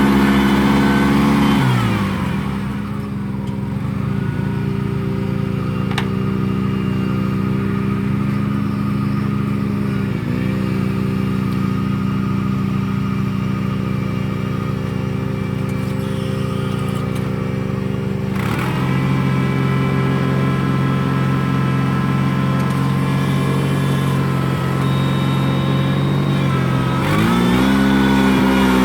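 Rice transplanter's engine running steadily under load, slowing about two seconds in and speeding up again near the end.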